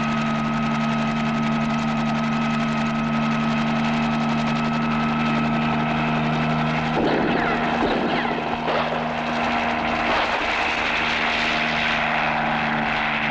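Large turbine helicopter running on the ground, its rotor and engines making a steady noise with a constant high whine, with some wavering in the sound in the middle.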